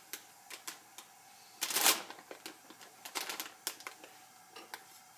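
Irregular small clicks and crackles from a chapati puffing up on a dry, very hot cast-iron skillet, with one louder brief rush of noise about two seconds in.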